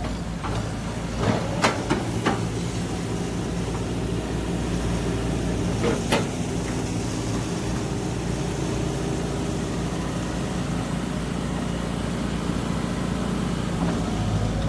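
Heavy diesel machinery engine running steadily, with a few sharp knocks in the first two or three seconds and another about six seconds in.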